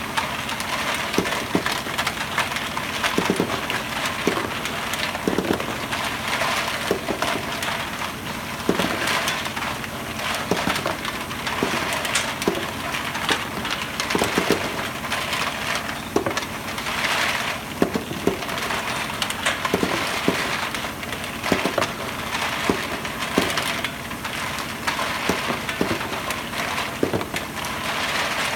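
Rotary parts feeder tumbling a load of small white plastic parts in its rotating drum: a continuous dense plastic clatter, with louder knocks every half second to a second or so as parts drop and strike the dial.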